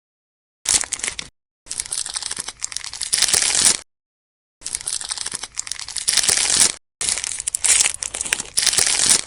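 Crinkling of plastic toy packaging being handled and unwrapped, in four bursts of crackle. Each burst starts and cuts off sharply into silence.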